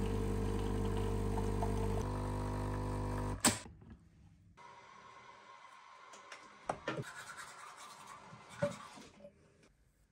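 Nescafé Dolce Gusto capsule coffee machine's pump buzzing steadily as it dispenses into a mug, ending with a sharp click about three and a half seconds in. After that, quieter handling sounds at a bathroom sink with a few light knocks and clicks.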